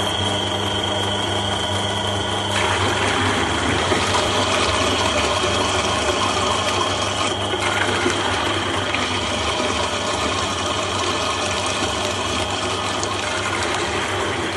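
Motor-driven coffee processing machine running steadily, with a constant low hum and a high whine. A louder rushing noise of material passing through joins about two and a half seconds in.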